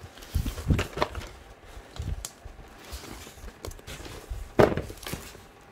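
A taped cardboard box being shifted and pulled out of a large packed shipping carton: cardboard scraping and knocking, with several thumps and the loudest one about four and a half seconds in.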